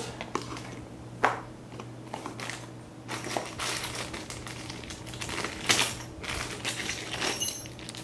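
Plastic parts bag crinkling, with light clicks and clinks of small metal mounting hardware (screws, springs, an Allen wrench) as a Koolance CPU water block kit is unpacked; a couple of sharper clicks stand out.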